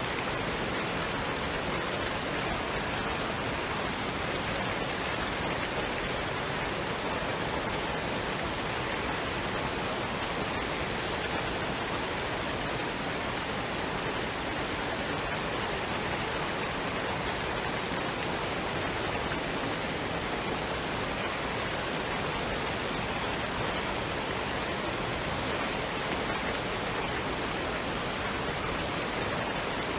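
Steady, even rush of a waterfall and stream: water pouring and running without a break.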